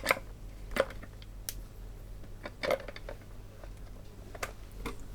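Batteries being fitted into a plastic toy's battery compartment: scattered light clicks and knocks, about half a dozen, over a steady low hum.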